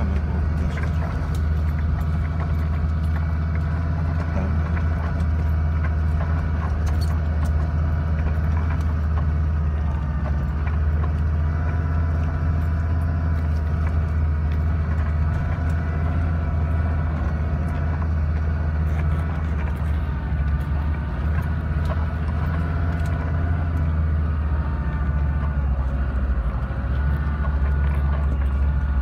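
Off-road 4x4's engine running steadily at low revs while crawling down a rough dirt track, with scattered light rattles and knocks from the vehicle.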